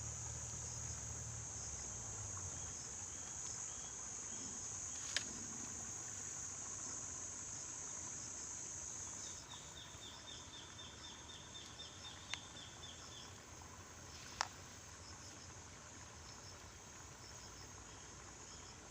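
Insects trilling steadily at a high pitch, the trill cutting off about halfway through, then a run of quick repeated chirps. Three sharp clicks stand out above it.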